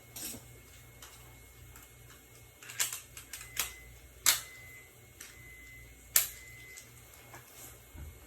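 A handful of sharp, separate clicks and knocks, a second or two apart, the loudest about two thirds of the way in, over a faint steady hum. These are tools and parts being handled while a washer's door boot is being replaced.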